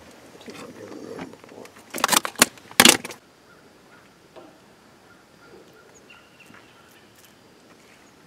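A quick run of loud knocks and rattles, as things are bumped and handled inside the boat, about two to three seconds in; then low background.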